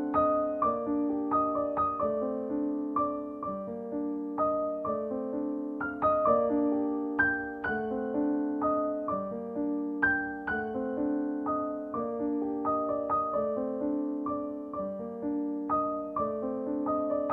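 Background music: a gentle piano or electric-piano tune, notes struck one after another in a repeating pattern.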